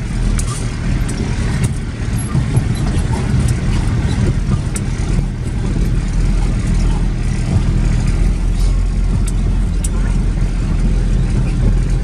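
Car driving slowly on a rough dirt road, heard from inside the cabin: a steady, loud low rumble of engine and tyres, with scattered sharp ticks and knocks.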